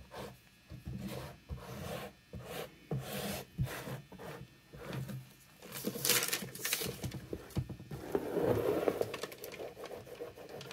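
Squeegee scraping and spreading wet gesso across a textured painted canvas in repeated uneven strokes. The sharpest stroke comes about six seconds in, and a longer, louder smearing pass follows around eight seconds in.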